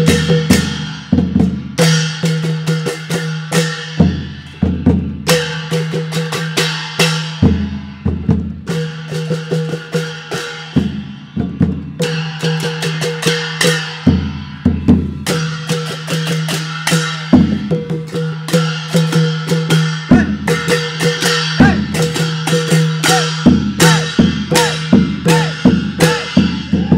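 Isan klong yao (long drum) ensemble playing: long drums beaten by hand in a fast, driving rhythm, with sharp bright strikes on top and a steady low drone underneath.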